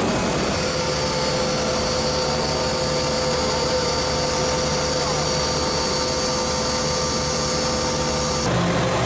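A 1500 kW diesel generator set running: a loud, steady engine and machinery noise with a steady whine running through it. Near the end the high hiss drops away abruptly while the low engine sound carries on.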